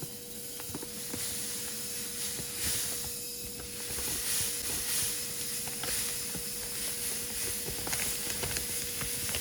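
Auger powder-filling machine running: a steady motor hum with a hiss and scattered light clicks.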